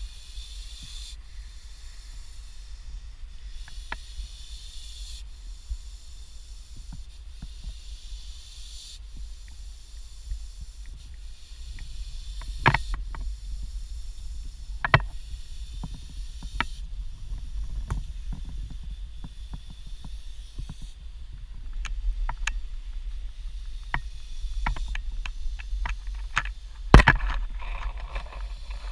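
Common European adder hissing in drawn-out breaths that come and go every few seconds, with scattered sharp knocks, the loudest near the end, over a low rumble.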